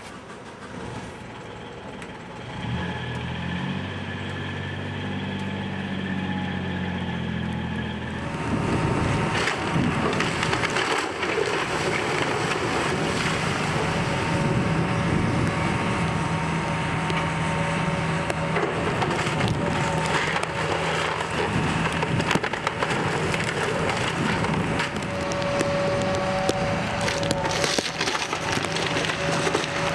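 Heavy demolition machinery working a wooden structure. An engine revs up at first, then from about eight seconds in timber cracks, splinters and crunches continuously as it is torn apart and crushed, with the engine still running underneath.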